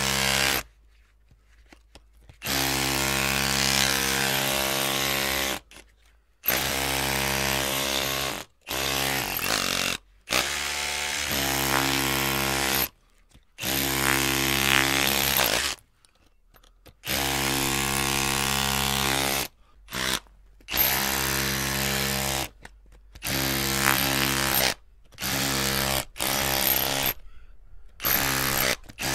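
Electric drill motor run in about a dozen short bursts, each one to three seconds long, as the trigger is squeezed and released with brief pauses between. Each burst holds a steady whine, and once, about eleven seconds in, the motor speed dips and climbs.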